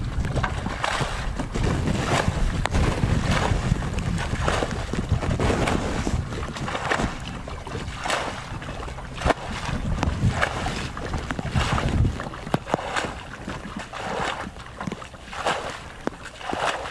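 Shallow muddy water splashing and sloshing in repeated strokes, roughly one a second, as a plastic bucket is pushed through it and feet wade. Wind rumbles on the microphone for about the first twelve seconds.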